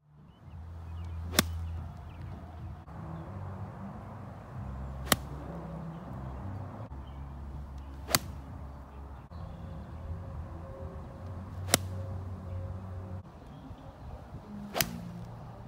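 Golf club striking a ball off the turf, five sharp cracks about three and a half seconds apart, over a low steady background rumble.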